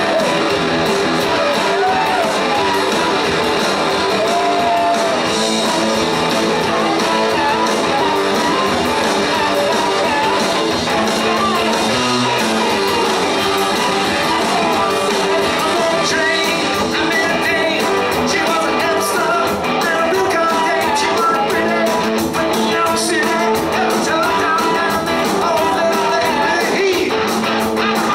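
Live rock band playing rock and roll, with electric guitars, bass guitar and a drum kit.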